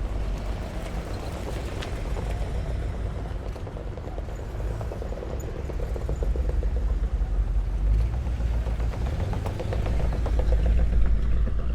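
Vintage vehicles' engines running as they pass in a street parade, with a low rumble that grows louder in the second half.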